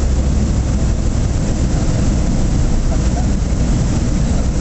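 Land Africa ultralight's engine and propeller droning steadily in cruise flight, with an even rush of noise over the engine note.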